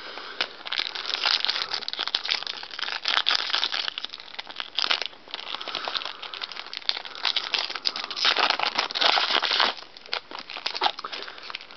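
Foil trading-card pack wrapper crinkling and tearing as it is opened, in uneven spells of crackling with a louder stretch late on.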